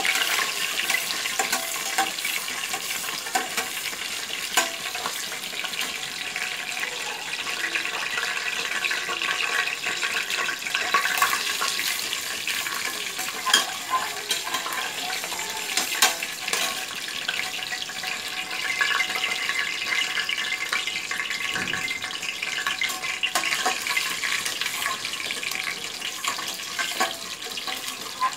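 Whole spices frying in hot sesame oil and ghee in a steel pressure cooker: a steady sizzle, with a spatula stirring through the oil and now and then clicking against the pot.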